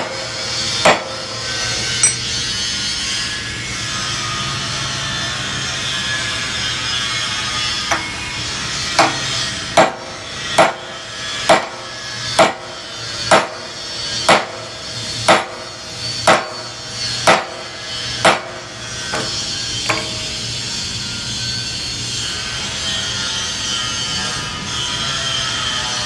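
Hammer blows on a steel rod driven in among the strands of a steel wire rope clamped in a vise, as part of splicing the rope. A few separate strikes come first, then a steady run of about eleven blows roughly once a second, ending a little past the middle.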